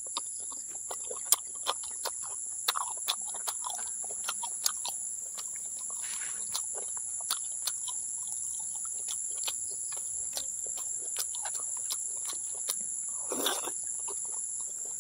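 Close-up eating sounds of rubbery boiled cow skin dipped in chili sauce: many small wet clicks of chewing and mouth noises, with a longer slurp near the end. A steady high insect drone runs underneath.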